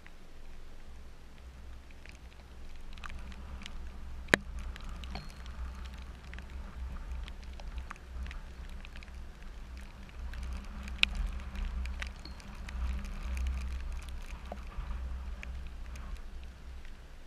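Rain pattering, with drops striking the camera as scattered sharp ticks, two much louder ones about four seconds in and about eleven seconds in. A steady low rumble lies underneath.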